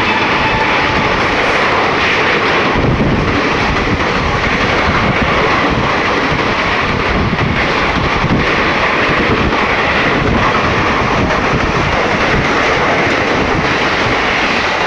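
An Indian Railways express train running past on the track close by: a steady, loud rush of steel wheels on the rails, with irregular knocks as the coaches roll by.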